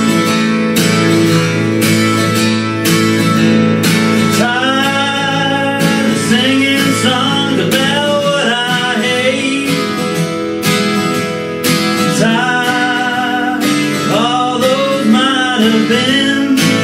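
Twelve-string acoustic guitar strummed in a steady rhythm, joined about four seconds in by a rack-held harmonica playing a blues melody with bent, wavering notes.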